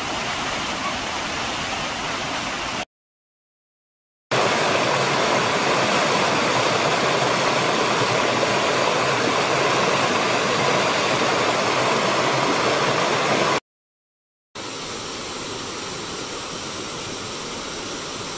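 Steady rush of a waterfall. It comes in three separate takes, cut off by two short gaps of total silence about three seconds in and about fourteen seconds in. The middle take is the loudest.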